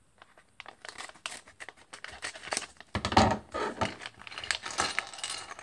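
Scissors snipping into a Lego minifigure blind bag, with the thin plastic foil packet crinkling and crackling as it is handled and pulled open. The crinkling grows louder and denser about three seconds in.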